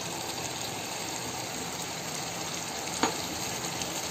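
Thick masala gravy with whole small brinjals bubbling steadily in a pan over a low flame. The cooked masala has its oil separating at the surface. One short knock about three seconds in.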